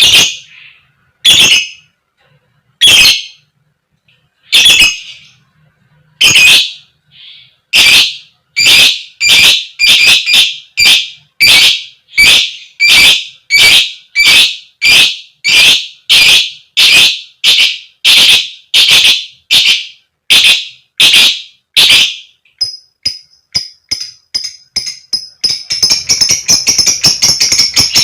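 A lovebird giving loud, repeated 'koek koek' calls, spaced about a second and a half apart at first, then quickening to about two a second. Near the end the calls run into a rapid, continuous chatter.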